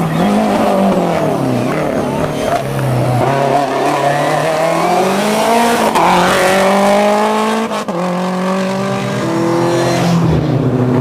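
Lancia Delta rally car's engine accelerating hard uphill, revs climbing through the gears, with a sharp drop at an upshift about eight seconds in.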